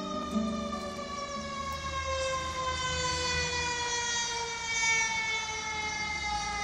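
Fire truck siren sounding one long wail that falls slowly in pitch.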